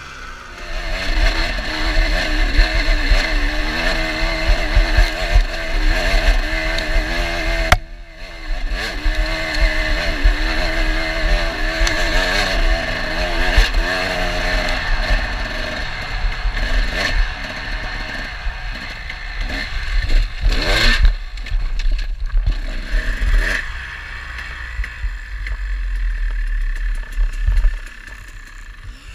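Dirt bike engine running under load on a rough trail, its pitch rising and falling with the throttle, with clatter from the bike over the ground. The engine cuts back briefly about eight seconds in, two sharp knocks come about two-thirds of the way through, and near the end it drops back to a low run.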